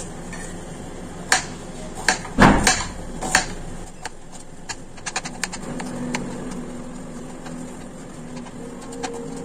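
Kitchen knife chopping red onion on a cutting board: irregular knocks, the loudest about two and a half seconds in, then a run of lighter, quicker taps.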